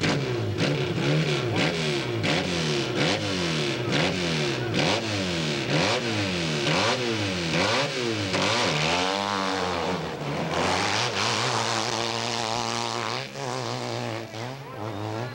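Hillclimb motorcycle engine revved up and down over and over, about twice a second. Then it makes one slower rise and fall and holds a steady pitch for the last few seconds.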